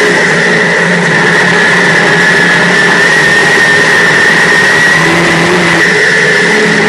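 Dirt modified race car's V8 engine under racing load, heard from inside the cockpit: loud, continuous engine noise with a steady high whine over it. The engine pitch shifts briefly about five seconds in.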